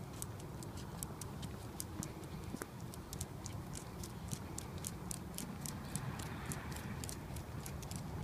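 An old dog's toenails clicking on hard ground as it walks, a light, steady run of about five clicks a second.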